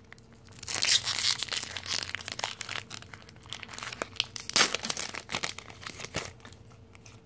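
Foil Pokémon booster pack wrapper being torn open and crinkled: an irregular run of crackly rustles, loudest about a second in and again past the middle, easing off near the end.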